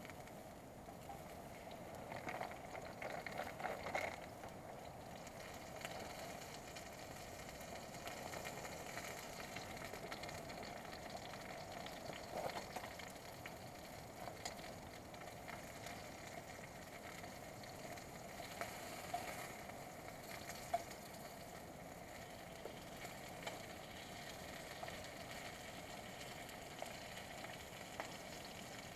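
Wood campfire burning: a steady hiss with scattered crackles and pops, and a few louder knocks in the first few seconds as wood is handled at the fire.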